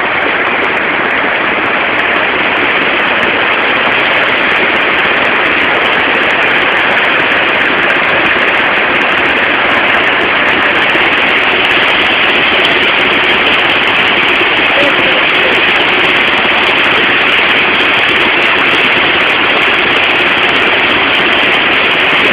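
Loud, steady roar of rushing river water as a boat is driven through a fast current and rapids.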